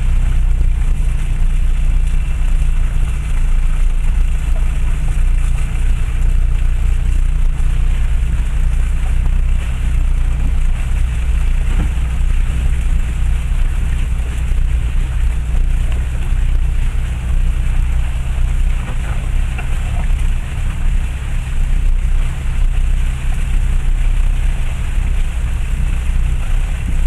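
In-cabin drive noise of a Land Rover Freelander 1 TD4 crawling along a rough, rutted dirt lane: a steady low rumble of its diesel engine and tyres, with an even hiss over it.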